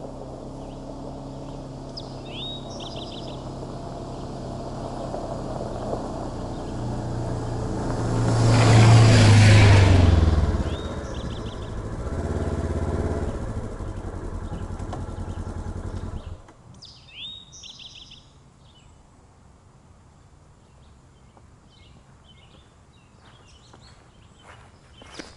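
Polaris Ranger utility vehicle's engine running as it drives up and past, growing louder to a peak about nine seconds in, easing off, then cutting off suddenly about two-thirds of the way through. Birds chirp in short calls, heard more clearly once the engine stops.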